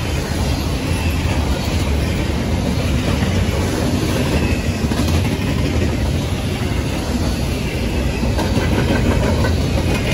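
Double-stack intermodal well cars rolling past at speed: a steady, loud rolling noise of steel wheels on the rails.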